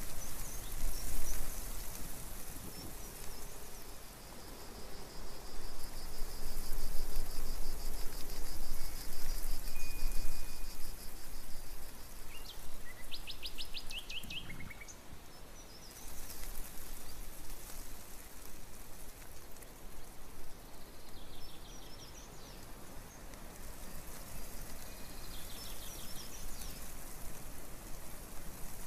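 Small birds calling in short, high rapid trills and chirps several times, over a steady outdoor hiss.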